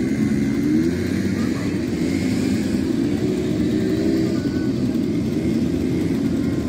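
Quad bike (ATV) engines running, the pitch wavering up and down a little as they rev.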